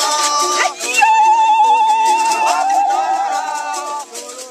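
A group of voices singing, with one voice holding a long wavering note through the middle and quick rhythmic percussive clicks in the first second.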